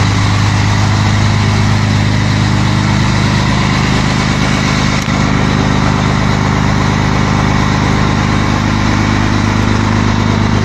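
Scania 113 truck's 11-litre straight-six diesel idling steadily.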